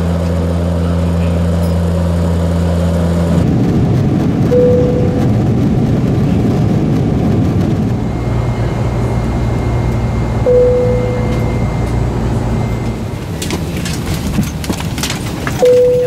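Airliner seatbelt-sign chimes: three single low 'bing' tones, each ringing out briefly, about six seconds apart, over steady cabin engine noise. The first few seconds hold only a loud, steady engine drone inside a DHC-6 Twin Otter cabin.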